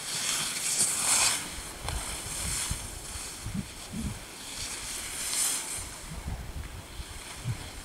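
Skis swishing and scraping over snow, with two louder swooshes of turning, about a second in and about five and a half seconds in, and wind rumbling on the microphone.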